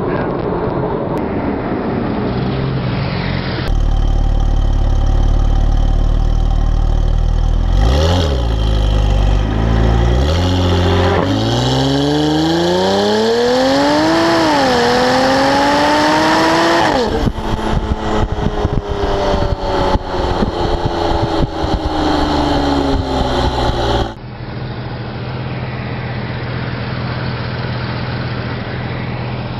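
Tuned Porsche 911 twin-turbo flat-six of a Gemballa Avalanche GTR 650 EVO R accelerating hard. Its pitch climbs, drops briefly at a gear change, then climbs again before lifting off into a run of exhaust crackles and pops as it slows. Near the end a car engine idles more quietly.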